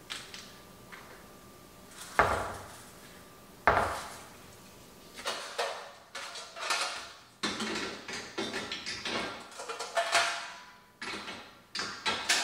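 Dishes and metal baking pans clinking and clattering as a dishwasher is unloaded. Two loud clanks come about two and three and a half seconds in, then a quick run of clinks from about five seconds on.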